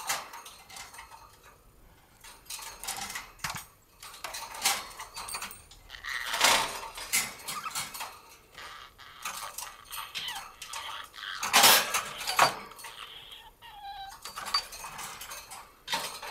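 Pet budgerigar at the wire of its cage: quick metallic clinks and rattles on the bars, with two louder outbursts about six and twelve seconds in, and short chirps near the end.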